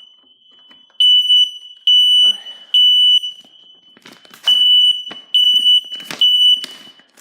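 Ionization smoke alarm sounding its shrill three-beep evacuation pattern: three beeps, a pause, then three more, stopping near the end. It is going off only after repeated sprays of aerosol test smoke, a sign that the aging sensor has lost sensitivity. A few sharp clicks of handling fall among the last beeps.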